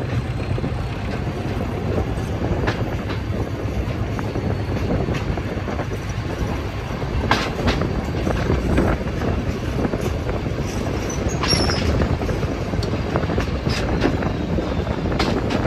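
A passenger train rolling in at low speed: a steady rumble with scattered sharp clicks from the wheels over rail joints, and a brief high squeal about two-thirds of the way through.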